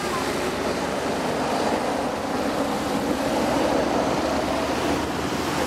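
Air ambulance helicopter's rotors and engines running steadily as it climbs away overhead after take-off.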